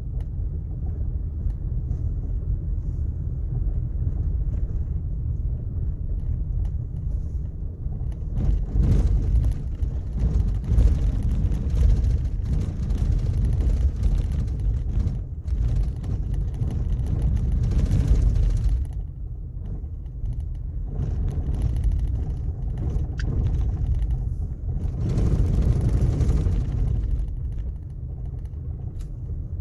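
A car driving on a gravel road: a continuous low rumble of tyres on gravel and engine, growing louder for a stretch in the middle and again briefly near the end.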